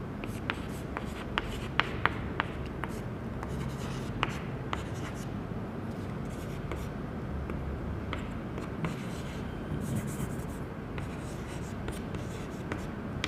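Chalk writing on a blackboard: a quick run of sharp taps in the first few seconds, then softer scratching strokes.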